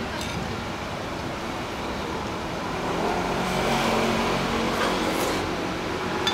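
Steady street background noise with a motor vehicle passing, swelling about three seconds in and fading after five. A metal spoon clicks once against the plate near the end.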